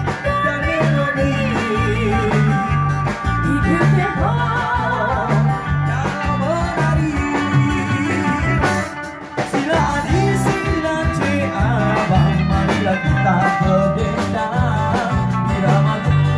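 Live band music: guitar, drums and bass playing over a steady beat while a woman sings, with a brief dip in the music about nine seconds in.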